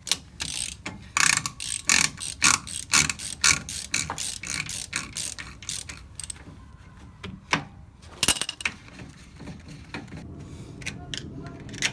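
Ratchet wrench clicking in quick, irregular strokes as it backs off an axle spindle nut, thinning to scattered clicks after about six seconds, with one sharper clack about eight seconds in.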